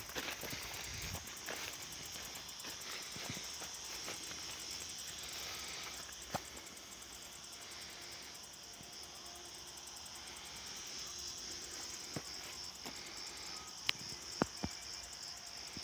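Insects chirring in a steady, high, rapidly pulsing drone, with a few short sharp clicks near the end.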